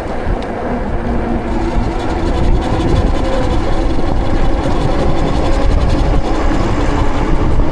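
Road noise while riding a bike in traffic: a steady heavy rumble with a low hum from a nearby vehicle, mixed with wind on the microphone. It grows louder over the first couple of seconds, then holds.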